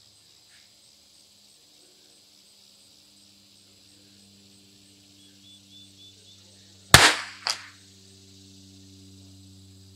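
A single shot from a Christensen Arms Ranger 22 bolt-action .22 LR rifle about seven seconds in: one sharp crack that dies away quickly, followed about half a second later by a second, fainter crack. A faint steady low hum runs underneath.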